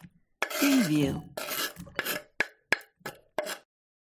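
Kitchen knife scraping food ingredients off a cutting board into a bowl: a series of short scrapes with a sharp tap in the middle.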